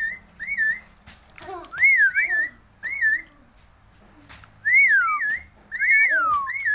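A hand-held Javan myna giving clear, loud whistled notes that rise and fall. They come in quick runs of two or three, some overlapping, again and again.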